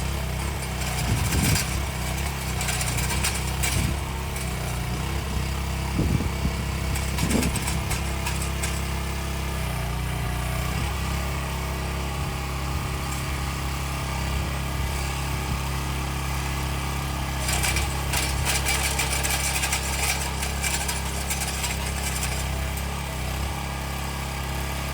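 Engine of trenching machinery running steadily. Louder, harsher noise comes in at times, near the start and again past the middle.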